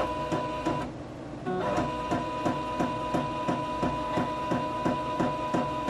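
Epson L1800 ink tank printer running its initial ink charge: a steady mechanical whine with regular ticking about three times a second. The whine stops briefly a little under a second in, then starts again.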